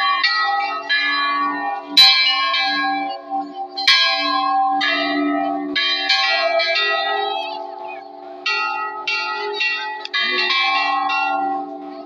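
Metal temple bells rung again and again, sharp strikes every half second to a second whose ringing overlaps, with two of the loudest strikes about two and four seconds in.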